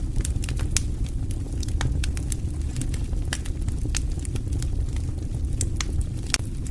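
Wood campfire crackling: irregular sharp pops and snaps, several a second, over a steady low rumble of the burning fire.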